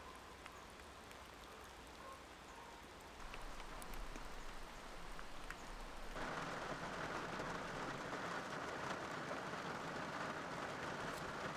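Steady rain, a soft hiss with scattered drop ticks, that grows louder in two steps. From about six seconds in it is heavier: rain striking a car's windows and roof.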